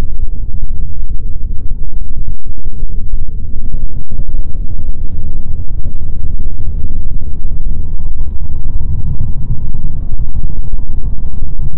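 Loud, steady low rumbling noise, overloaded and distorted. A faint steady tone joins it about eight seconds in.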